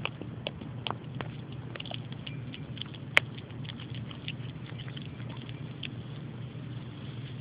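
Miniature pinscher's teeth clicking and snapping in quick, irregular taps at raw chicken and the yellow jackets on it, over a steady low buzz of the wasps. One sharp, louder click about three seconds in.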